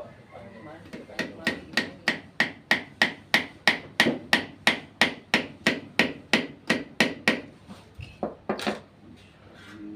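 Hammer striking repeatedly and evenly, about three blows a second for some six seconds, then two more blows after a short pause.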